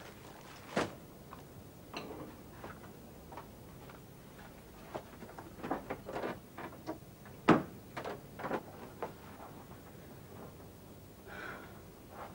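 Kitchen counter clatter: irregular knocks and clicks of jars, crockery and food being picked up and set down, the sharpest knock about halfway through.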